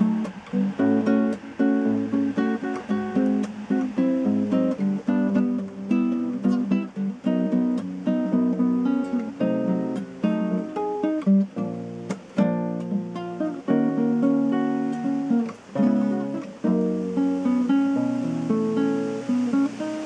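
Solo nylon-string acoustic guitar played fingerstyle: a steady flow of plucked melody notes and chords over a low bass line.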